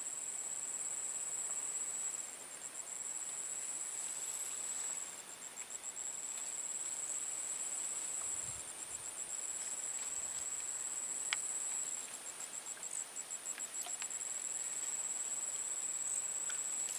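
Insects trilling at a high pitch in a continuous chorus, one call switching between a rapid pulsing and an unbroken buzz.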